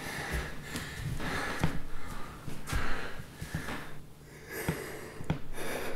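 A man sobbing without words: ragged gasping breaths, snorts and sniffs, with a quieter spell about four seconds in.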